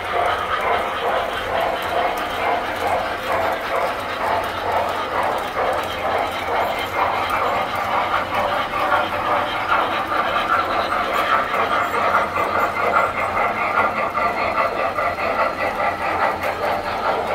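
Tinplate model trains running on metal track: a continuous whirring rattle of motors and wheels, with a steady low hum underneath.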